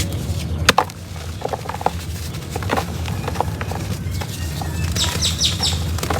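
Soft, slightly damp reused cement crumbling: scattered small crackles and crunches over a steady low hum. A quick run of high chirps comes about five seconds in.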